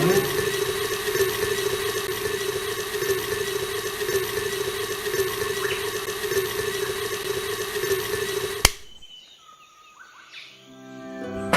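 A small electric motor running steadily with an even whine. About eight and a half seconds in it cuts off sharply with a click, followed by faint chirps.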